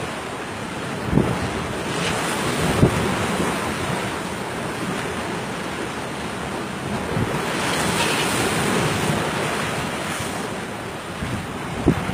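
Wind buffeting the microphone over a rough sea, with waves splashing against a wooden boat's hull. A few thumps stand out, the loudest near the end.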